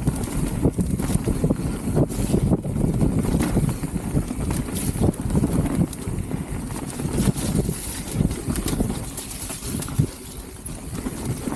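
Mountain bike riding down a muddy trail: wind buffeting the helmet-mounted camera's microphone and tyres rolling over dirt, with frequent knocks and rattles from the bike over bumps. The noise eases slightly near the end.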